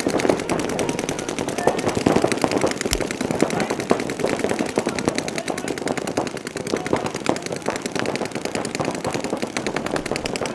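Paintball markers firing rapid, continuous streams of shots, several guns overlapping without a pause.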